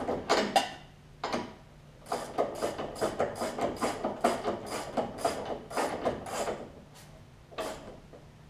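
Ratcheting wrench clicking as a locknut is run down onto a riding mower's deck-height adjustment rod: a few separate clicks, then a steady run of quick clicks through the middle.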